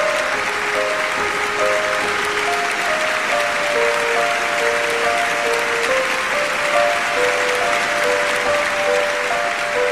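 Audience applauding steadily over a slow instrumental melody of single held notes.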